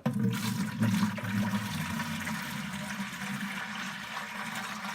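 Water pouring steadily from a jug into a plastic bucket, starting suddenly.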